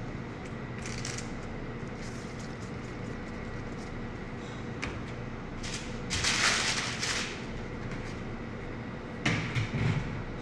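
A sheet of paper rustles briefly as a gloved hand handles it, about six seconds in, over a steady low room hum. A few short knocks and soft thuds follow near the end.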